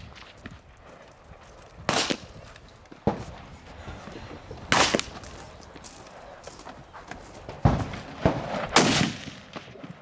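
Rifle gunfire on a firing line: about six sharp shots at uneven intervals a second or two apart, the last three coming within about a second near the end.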